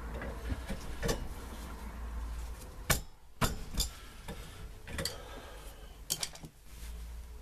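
Scattered sharp metallic clicks and clinks of hand tools and parts on a manual rack-and-pinion steering rack, as the adjuster is worked off the bottom of the rack housing; about half a dozen knocks, the loudest about three seconds in.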